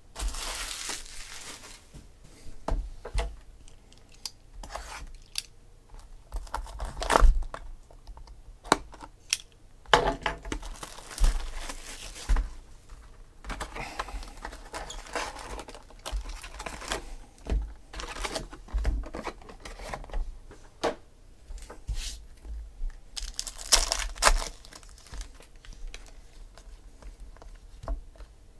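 Plastic wrapping torn off a sealed box of trading cards and foil card packs crinkled and ripped open, in repeated bursts of tearing and crinkling. Sharp clicks and knocks of the cardboard box and the cards being handled run between them, the sharpest a little over a quarter of the way in.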